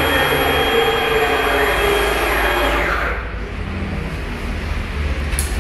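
5-axis CNC router running with a high motor whine and steady tones, its motors gliding in pitch as the head moves. About three seconds in the high whine dies away, leaving a lower hum, and a sharp click comes near the end.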